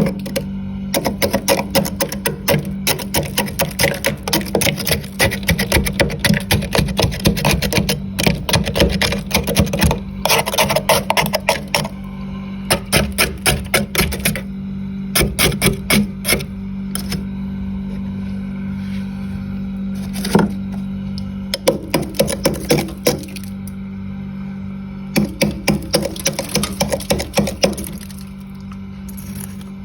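Frost being scraped from a freezer in quick runs of rapid scratching strokes, with short pauses between runs. A steady low hum runs underneath.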